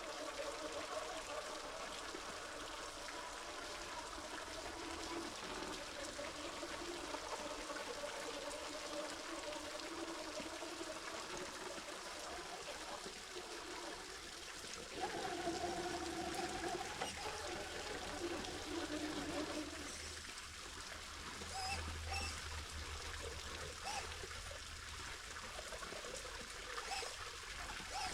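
Creek water trickling and splashing over rocks at a small waterfall, steady throughout.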